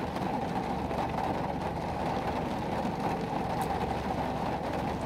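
Steady low rumble and hiss inside a stationary car, with no separate knocks or changes.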